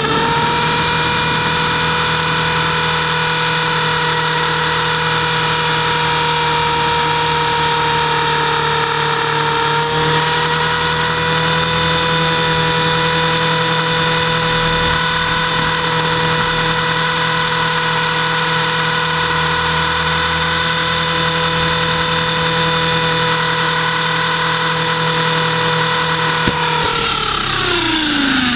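Electric motor and rotor of a T-Rex 450-class RC helicopter, heard from on board: a steady high whine holding speed in flight. About 27 seconds in it winds down, falling in pitch, as the power comes off with the helicopter on the ground.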